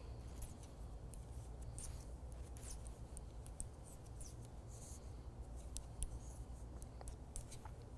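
Faint, irregular light clicks and rustles of circular knitting needles and yarn as knit stitches are worked, over a low steady room hum.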